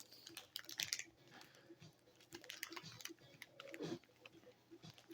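Faint scattered clicks and taps, with a brief rustle about a second in, from small plastic toys and blind-bag packets being handled.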